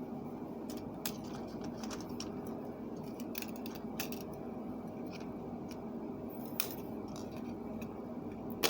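Pliers twisting thin steel wire tight around a clear plastic Christmas ball: scattered light clicks and ticks of metal on plastic, the sharpest near the end, over a steady low hum.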